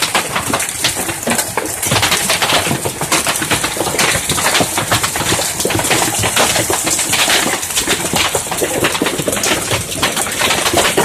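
Large hailstones pelting roofs and the ground in a heavy hailstorm: a dense, steady clatter of countless small impacts.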